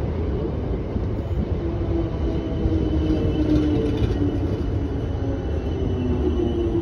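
South Western Railway Class 455 electric multiple unit pulling into the platform, its wheels rumbling on the rails, with a whine that shifts in pitch.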